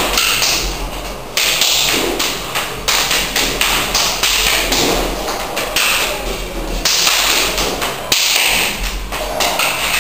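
Hands and forearms slapping and tapping against each other in a fast knife-defence trapping drill: a quick irregular run of sharp slaps and thuds, with swishes of arm movement.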